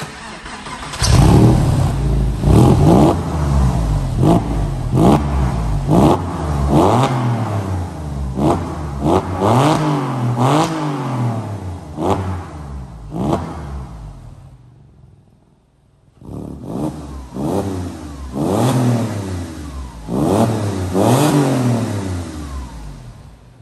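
Porsche 996 Carrera's flat-six engine being blipped repeatedly, each rev rising and falling quickly, through an EVOX ValveTronic aftermarket exhaust. The exhaust valves are open during the first run of revs and closed near the end. There is a brief lull a little past halfway.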